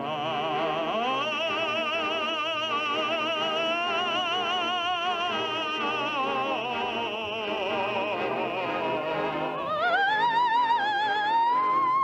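Operatic soprano singing with wide vibrato over instrumental accompaniment. About ten seconds in, the voice slides up to a high, held note.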